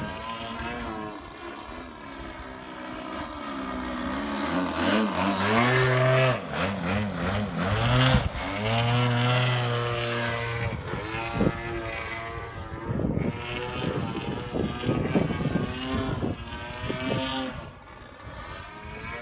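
Gas engine and propeller of a 3D aerobatic RC airplane, pitch rising and falling with throttle changes. It is loudest about five to ten seconds in as the plane passes low and close, then surges in short throttle bursts and fades near the end.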